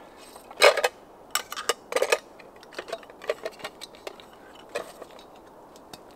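Metal camping cookware clinking and clattering as a small pot and frying pan are handled and put away: a few louder clanks in the first two seconds, then lighter scattered ticks.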